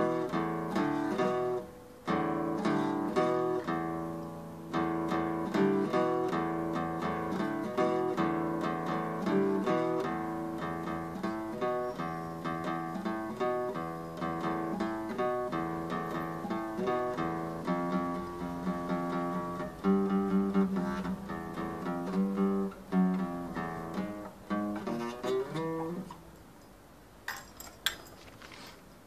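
Acoustic guitar in drop-D tuning playing a riff of picked notes and chords, stopping about three seconds before the end, followed by a few sharp knocks.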